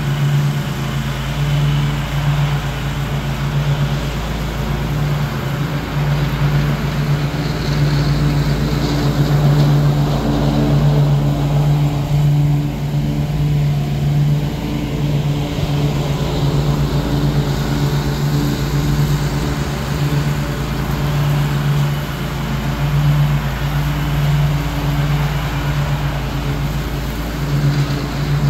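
Ariens Ikon zero-turn riding mower's engine running steadily as it mows, a low steady drone that swells and eases slightly as the mower moves across the lawn.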